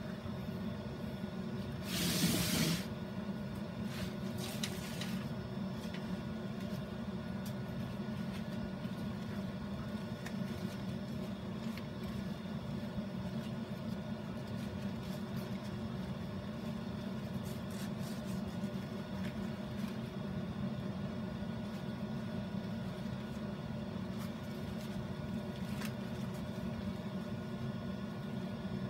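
A steady machine hum, like a fan or motor, with faint light ticks and rustles from hands working damp sphagnum moss. About two seconds in there is a short, louder hissing rustle lasting under a second, and a fainter one a couple of seconds later.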